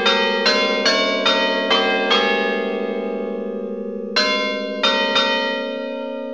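Large bronze church bells struck in turn at different pitches, about two strokes a second, each ringing on with a long hum. A run of six strokes, a pause of about two seconds while the bells hum on, then three more strokes from about four seconds in.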